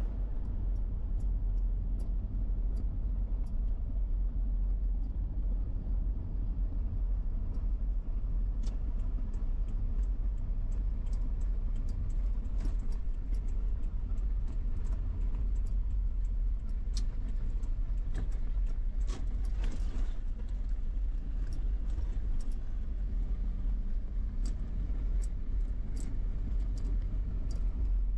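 A car driving, heard from inside the cabin: a steady low rumble of road and engine, with scattered light clicks and rattles.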